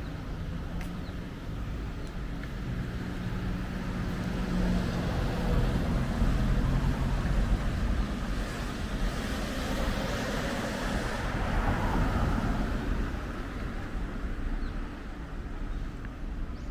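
Street traffic: a motor vehicle's engine and tyre noise swell to a peak about halfway through and then fade, over a steady low rumble of road noise.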